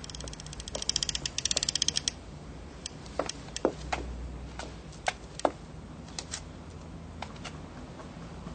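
A fast, dense run of sharp clicks for about two seconds, then a handful of separate sharp taps spaced irregularly, over a steady low hum.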